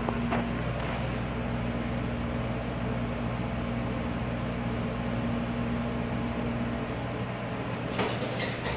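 Schindler 330A hydraulic elevator riding up, heard inside the cab: a steady hum from the running drive. The hum stops about seven seconds in as the car comes to rest at the floor. About a second later a clunk and short rattle come as the doors begin to slide open.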